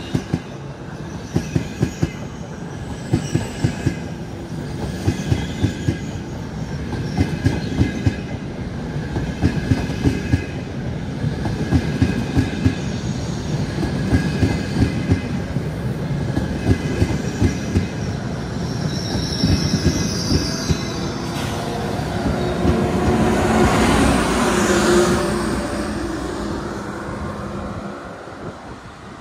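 Frecciarossa high-speed train rolling slowly through the station, its wheels clicking over rail joints and points again and again. A high wheel squeal comes in about two-thirds of the way through, the train noise swells to its loudest soon after, then fades.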